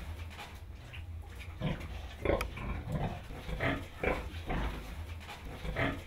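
Piglets grunting in short calls that come about every half second from about a second and a half in, over a steady low rumble.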